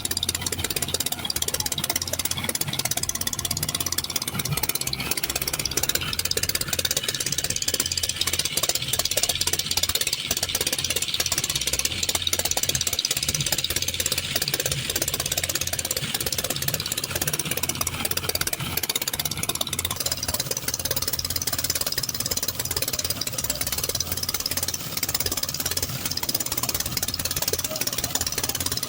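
Motorboat engine running steadily, a constant low hum with a high hiss of water and wind over it.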